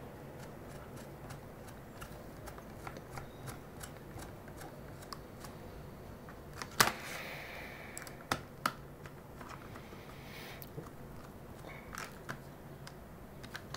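A small screwdriver driving tiny screws into the plastic back of a Panasonic RF-015 pocket radio, with faint scattered ticks and clicks of the tool and the case being handled. A sharper click comes about seven seconds in.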